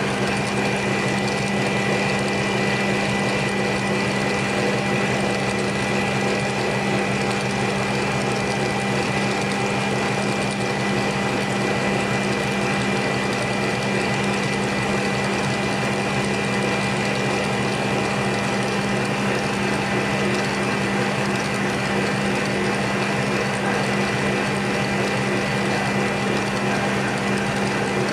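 Stand mixer running steadily at one speed, its wire whisk beating cream into chantilly in a metal bowl: a constant motor hum with a strong low tone.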